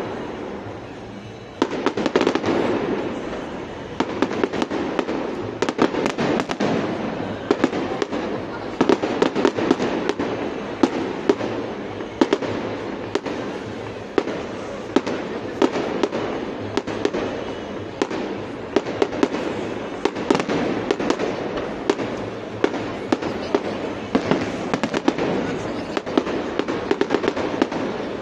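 Fireworks display: a dense, continuous barrage of bangs and crackles from aerial shells bursting overhead. There is a short lull about a second in, then the barrage picks up again.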